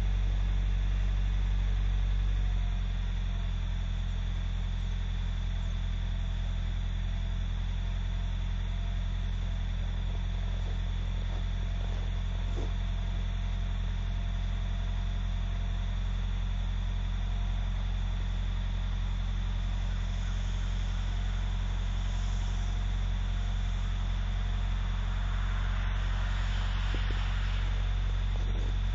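Engine idling steadily just after a long-cranking cold start at eight below zero, a low hum that eases down slightly about two and a half seconds in.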